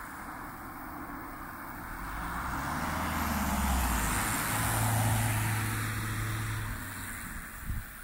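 A convertible car driving past. Its tyre noise and low engine hum swell over a few seconds, peak about halfway through, and fade as it moves away.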